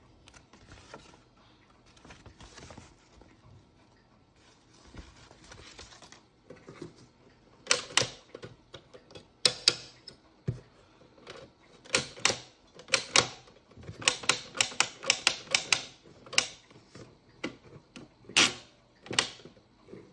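Mouseketeer Fan Club toy typewriter being typed on: a few soft sliding, rustling sounds, then, from about eight seconds in, sharp irregular clacks of keys striking, some in quick runs, ending with two single strikes.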